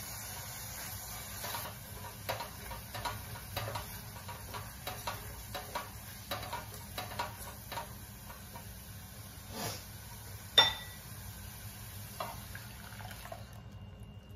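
Silicone spatula stirring frying onions and spices in a nonstick pot, a run of soft scrapes and taps about two a second. Then blended tomato puree is poured in, and a single sharp knock with a brief ring comes about ten and a half seconds in.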